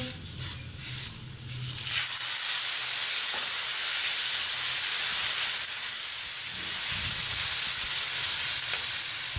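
Water poured onto oil-roasted dalia (broken wheat) in a hot nonstick kadhai, setting off a sudden, steady sizzle about two seconds in that keeps on as the water bubbles. Before that, a few soft strokes of a silicone spatula stirring the dry grains.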